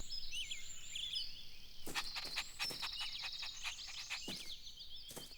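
Birds chirping and twittering in a natural outdoor ambience, many short quick calls, with a run of sharp clicks about two seconds in and another a little after four seconds.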